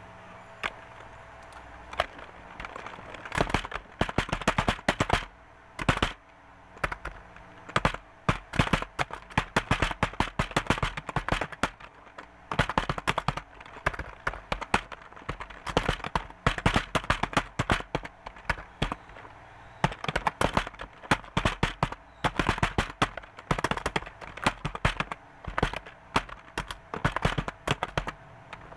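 Fast typing on a computer keyboard: rapid runs of key clicks in bursts with short pauses between them, starting with a few scattered keystrokes for the first three seconds or so.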